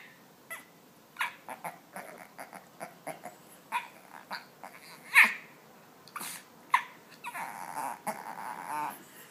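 Shih Tzu puppy giving a run of short grunts and whiny yips, the loudest about five seconds in, then a longer grumbling growl over the last two seconds.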